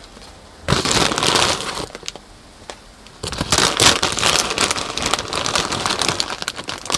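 Clear plastic packet of dried tagliatelle crinkling and rustling as nests of pasta are pulled out of it by hand, in two spells: a short one about a second in and a longer one from about three seconds on.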